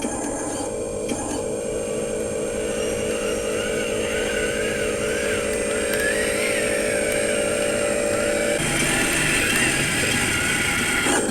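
Radio-controlled truck running, with a steady motor hum and a higher whine that wavers in pitch. The hum stops about three seconds before the end.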